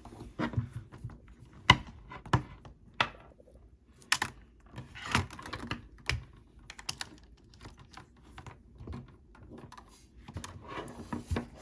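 Irregular plastic clicks, taps and rustling as cables and a docking station are handled and moved about.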